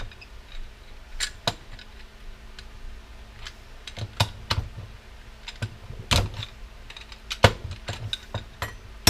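Irregular light clicks and metal taps of small parts being handled and picked out of a dismantled RYOBI electric power washer, its brass pieces and bearing, with a couple of louder knocks about six and seven and a half seconds in.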